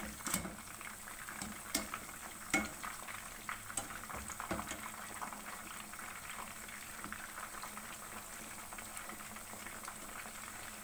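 Marinated chicken pieces frying in hot oil with a steady sizzle. About five light knocks come in the first few seconds as the pieces are turned over in the pan with a utensil.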